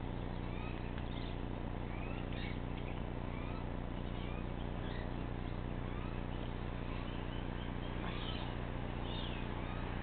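Faint bird calls: short rising chirps and whistles scattered throughout, over a steady low hum.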